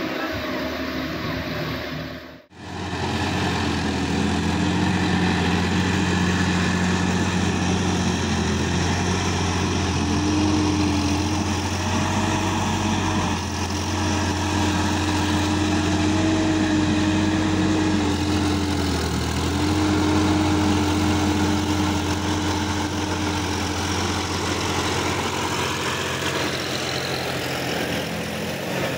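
Sonalika tractor's diesel engine running steadily, its pitch holding nearly level with only small dips. The sound cuts out briefly about two seconds in, and the engine comes in after the cut.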